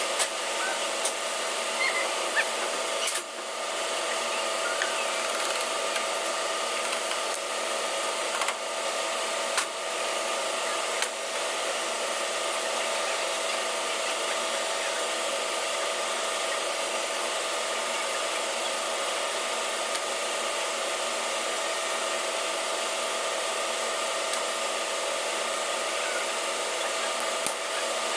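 Steady drone of running machinery and ventilation, with a couple of constant hum tones. Over it come a few short, sharp metallic clicks and taps from hand tools working on a diesel fuel injection pump clamped in a bench vise, mostly in the first third and once near the end.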